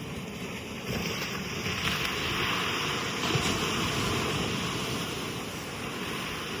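Ocean surf breaking on a beach: a wave's rushing hiss swells about a second in, then slowly dies away as it washes out.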